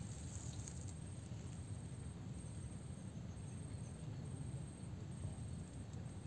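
Faint, steady low rumble of wind on the microphone, with a thin, high insect chirp coming and going in an even pattern.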